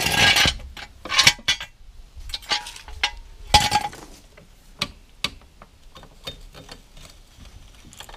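Steel trolley jack being handled and pulled out from under a car: several sharp metallic clanks of its frame and handle in the first four seconds, one ringing briefly, then lighter rattles and ticks.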